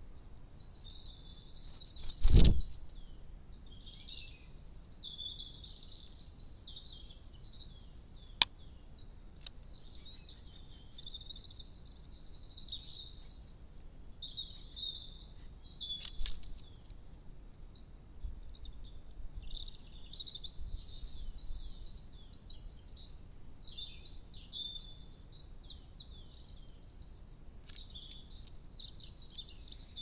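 Garden songbirds singing continuously, high-pitched, with fast trills and rapidly repeated notes. A loud thump about two seconds in, and a couple of sharp clicks later.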